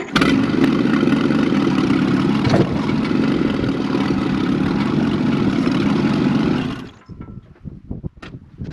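1948 Silver King Model 42 tractor's engine running steadily. It comes in suddenly at the start and cuts off about seven seconds in, as the engine is shut off.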